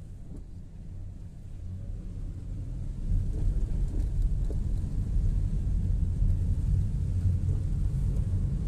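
Low, steady rumble of a car driving on a rain-soaked road, heard from inside the cabin, growing louder about three seconds in.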